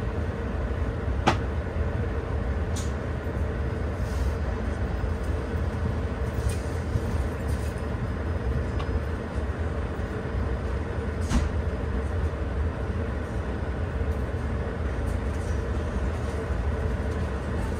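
Passenger train hauled by a Škoda 69E electric locomotive running along the line. It makes a steady low rumble with a faint constant hum and a few sharp clicks or knocks, one just over a second in and another about eleven seconds in.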